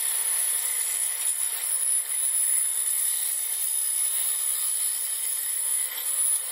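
Benchtop power saw running steadily while its blade cuts a curved part out of thin white plastic sheet, a steady high whine over an even hiss.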